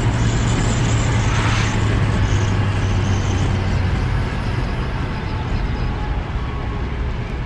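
The truck's mildly built Chevy small-block V8, with an Edelbrock four-barrel carburetor and mild cam, heard from inside the cab at cruising speed: a steady engine drone under road and wind noise. There is a brief rush of air about a second and a half in, and the engine note fades slightly in the second half.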